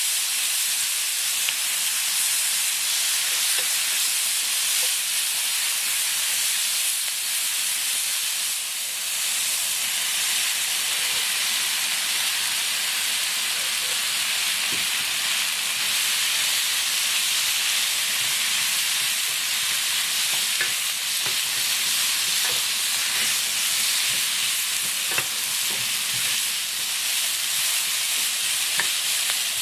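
Marinated pork belly and vegetables sizzling steadily in a frying pan over high heat while being stir-fried, with a few light clicks of the utensil against the pan in the second half.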